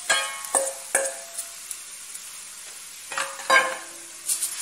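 Frying in a stainless steel pot as shredded chicken is tipped in, with a steady sizzle under several sharp knocks and clinks against the pot that ring briefly. The knocks come near the start, around a second in, and loudest at about three and a half seconds.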